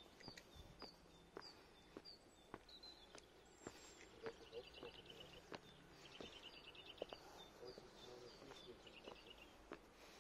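Faint footsteps at a steady walking pace, about two steps a second, with small birds chirping and giving several rapid trills.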